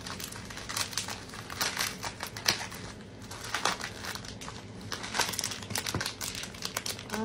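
Small plastic mailer pouch and packaging crinkling and rustling in the hands as it is opened and the item inside is pulled out, in irregular crackles.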